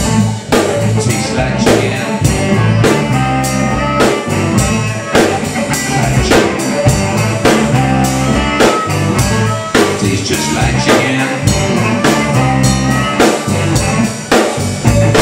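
Live blues band playing: electric guitars over a drum kit keeping a steady beat.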